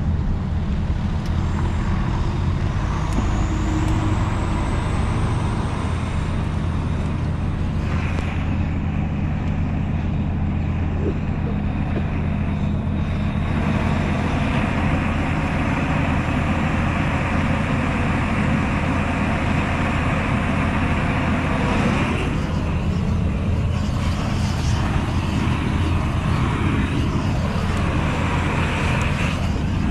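Steady engine drone and road noise of a vehicle being driven, heard from inside the cab, with a few shifts in engine pitch in the second half.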